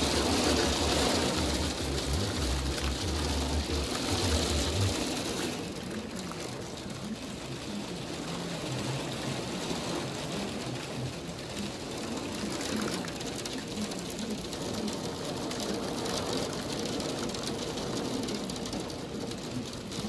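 Heavy rain falling steadily, a continuous hiss. A low rumble sits under it for the first five seconds or so, then drops away and leaves the steady rain.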